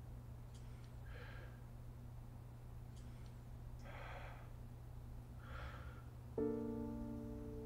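A man's audible breaths, three of them a second or two apart, over a low steady room hum; about six seconds in a soft piano chord comes in and rings on.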